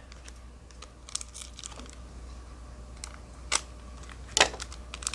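Foil wrapper of a Pokémon card booster pack crinkling and crackling in the hands, in scattered sharp crackles, the loudest two a little after three and four seconds in.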